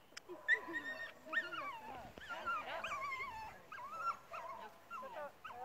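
A dog whining and yipping in a run of high, wavering calls, keyed up while held at the start line of a tunnel race.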